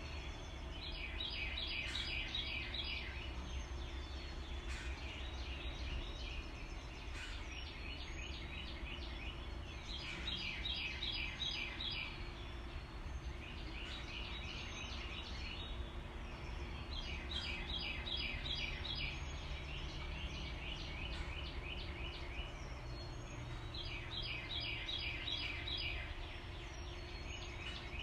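Steady rush of river water pouring over a low dam, under a rapid trilling call that repeats every few seconds. Each trill lasts about one and a half to two seconds, and louder and fainter trills alternate, as from a nearer and a farther caller.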